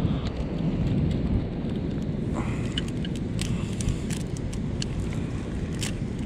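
Steady low rumble of wind buffeting the microphone at the shore. From about two seconds in come scattered sharp clicks of mussel shells as gloved hands twist a mussel free from the clump on the rocks.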